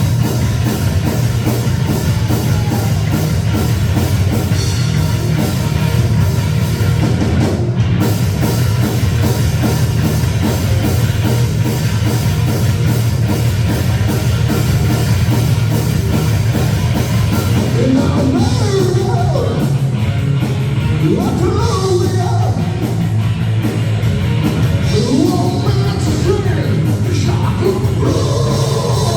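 Rock band playing a heavy, driving song with drum kit and guitars, with no break in the sound; a singer's voice comes in about two-thirds of the way through.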